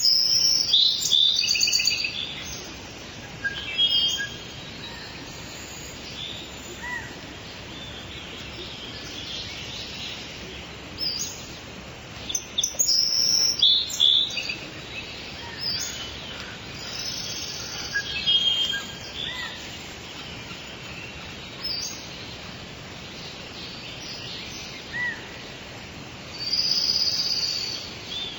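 Several songbirds chirping and singing in short bursts over a steady hiss of falling rain. The loudest flurries of song come right at the start, around the middle and near the end.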